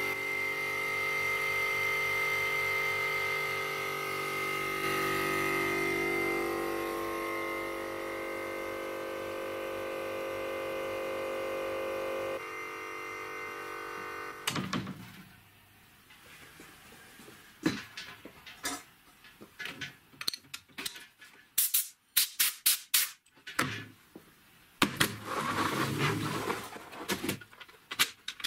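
Repurposed hermetic refrigerator compressor running with a steady multi-tone hum while pumping up the air tank; it stops about halfway through. Then come scattered knocks and clicks of parts being handled on a wooden workbench, with a longer scraping rustle near the end.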